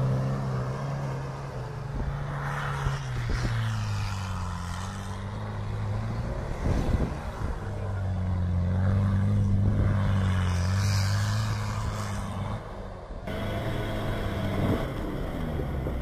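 UAZ off-roader's engine revving hard as its wheels spin through snow and slush, the pitch dropping and climbing again with the throttle.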